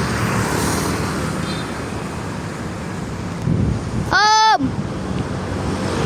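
A bus's telolet air horn sounds one short, bright note about four seconds in, lasting about half a second, its pitch dropping as it cuts off. Underneath is a steady rumble of wind and road noise.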